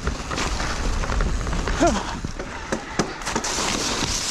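Electric mountain bike being ridden over rough trail: a steady rumble of wind and ride noise on the microphone with frequent knocks and rattles from the bike. A short pitched sound about two seconds in.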